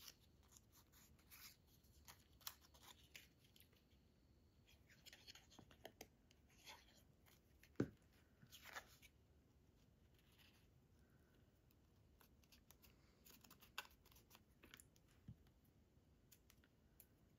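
Near silence with faint rustling and light clicks of cut cardstock pieces being handled, and one soft knock about eight seconds in.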